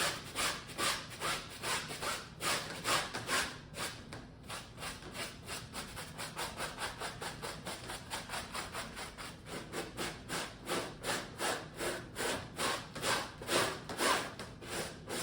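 Stiff hand scrub brush scrubbed back and forth over fabric upholstery, cleaner sprayed on, in steady rhythmic strokes of about two to three a second.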